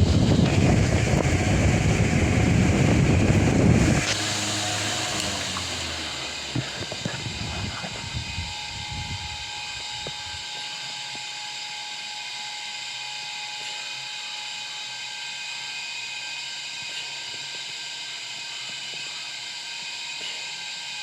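Delta Gold 50 cm wall fan running with a loud air rush. About four seconds in the rush drops off sharply and winds down over several seconds, as the fan is switched down or off, leaving a quieter steady sound with a faint whine.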